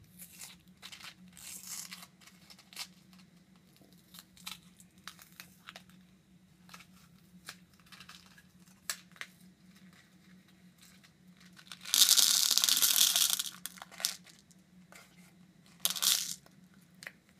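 Small cardboard Nerds candy boxes being handled and opened, with scattered small clicks and crinkles, then a loud noisy burst lasting over a second about twelve seconds in and a short one near the end as tiny hard Nerds candies are poured into a plastic bowl. A faint steady hum sits underneath.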